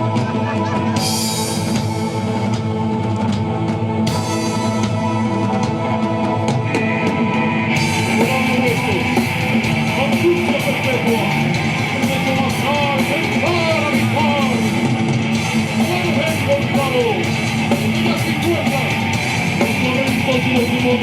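Rock band playing live, with drum kit and guitars. About eight seconds in the sound brightens and a wavering, bending melodic line comes in over the steady band.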